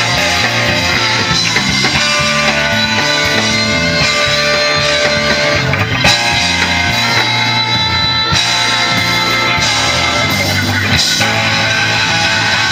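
Live band heard from the crowd through the stage PA, with guitar over a moving bass line.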